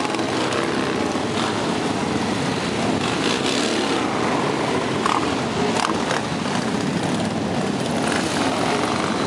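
Several classic racing motorcycle engines running at once on the pre-grid, a steady dense engine din.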